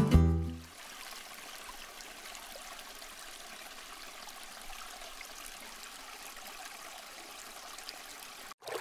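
Guitar music dies away in the first second, then water runs steadily through a trout farm's raceway channels with an even trickling flow. Near the end the sound breaks off briefly and a louder sound begins.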